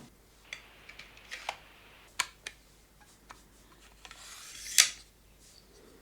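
A pneumatic 2-in-1 brad nailer/stapler being handled: a few light plastic-and-metal clicks, then a rising sliding rasp that ends in a sharp snap about five seconds in.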